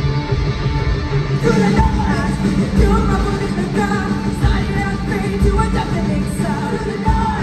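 A live hard rock band playing loud amplified electric guitar and a heavy low end, heard from the crowd in a concert hall. A lead vocal comes in about a second and a half in and carries on over the band.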